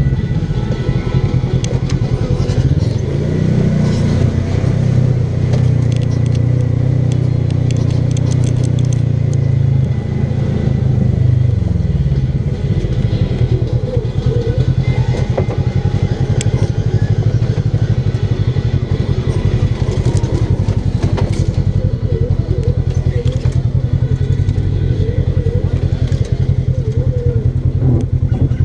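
Polaris RZR XP 1000 side-by-side's 999 cc parallel-twin engine running under load on a rough dirt trail. The revs rise about three seconds in, hold, and drop away about twelve seconds in. Scattered clicks and rattles are heard over it.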